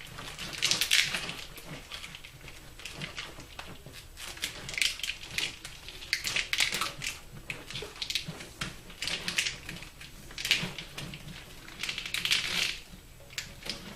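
Corrugated plastic split loom and wire bundles handled and worked onto a wiring harness: irregular bursts of crinkly rustling and clicking.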